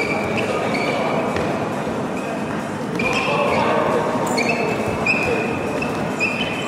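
Futsal players' shoes squeaking on the sports-hall court floor several times, with a few thuds of the ball being kicked. Behind them is a din of spectators' voices, echoing in the large hall.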